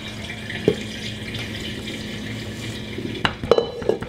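Rubber spatula scraping brownie batter out of a stainless steel mixing bowl over a steady background hiss, with a knock about a second in. Near the end comes a quick run of clacks and knocks as the metal bowl is set down on the stone countertop and the spatula is laid in the glass baking dish.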